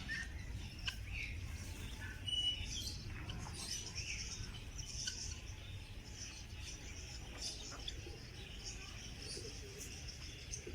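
Small birds chirping, many short high chirps overlapping throughout, over a low steady rumble.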